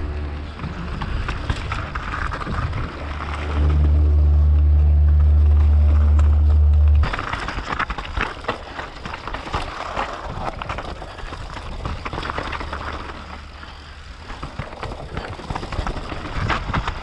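Mountain bike descending a trail, heard from a camera on the rider: a loud low rumble with a faint steady hum, loudest from about three and a half seconds in, that stops abruptly at about seven seconds. After that come continuous clattering and rattling of the tyres and bike over rocky dirt singletrack.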